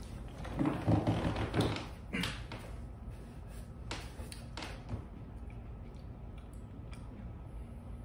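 Thumps and rustling as a person sits back into a leather office chair, followed by a few soft clicks.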